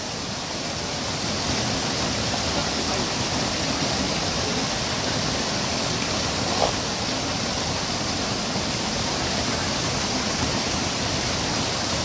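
Mountain stream water pouring over a rock ledge into a pool: a steady, close rushing of a small cascade, growing slightly louder over the first second or two.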